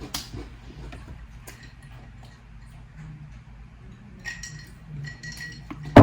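Eating Goldfish crackers: scattered small clicks and clinks of crackers and dishware being handled and chewed, with a sharp knock just before the end.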